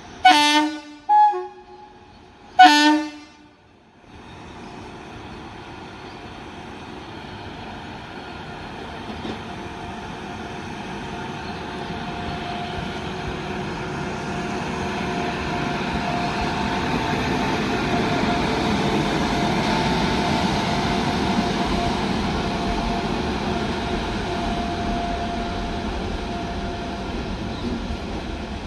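WAG-9 electric locomotive running light without a train: three short horn blasts, then its running noise, a rumble with a steady whine over it, building as it approaches and passes, loudest a little past halfway and easing off near the end.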